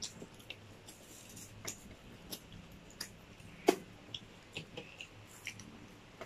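Scattered small clicks and crunches of french fries being chewed and handled over an aluminium foil tray, with one sharper, louder click a little past halfway.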